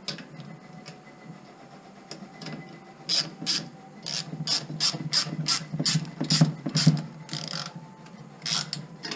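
Hand socket ratchet clicking stroke after stroke as it runs a nut down onto a bolt, starting about three seconds in.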